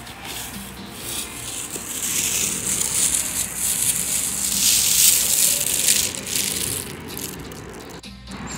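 Plastic bag rustling and crinkling as it is carried and handled, building up about two seconds in, loudest past the middle, then fading.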